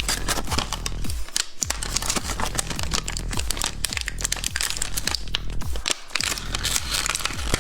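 Plastic candy wrapper crinkling and tearing in dense, sharp crackles, over background music with a steady beat.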